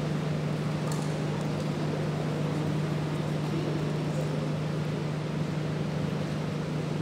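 A steady low hum under an even rushing background noise, with a faint click about a second in.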